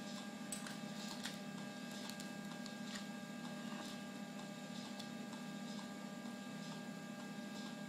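Steady low electrical mains hum, with a few faint light clicks scattered through it.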